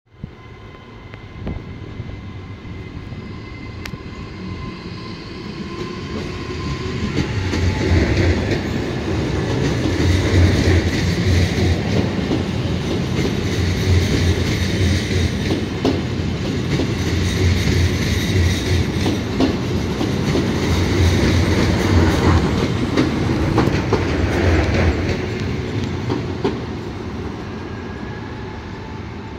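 Trenitalia Rock ETR 521 double-deck electric multiple unit running through the station past the platform. Its noise builds as it approaches, stays loud for most of the middle with the wheels clattering rhythmically over the rails, and fades as it moves away near the end.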